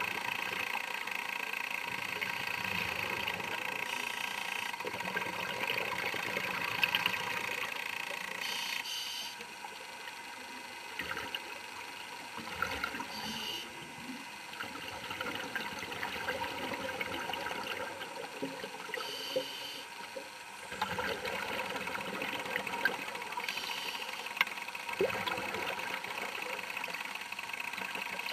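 Underwater sound picked up inside a camera housing: a steady mechanical hum with bubbling water coming and going every few seconds, with a few sharp knocks.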